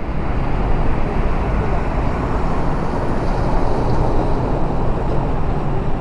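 Steady highway traffic noise: an even low rumble with no single vehicle standing out.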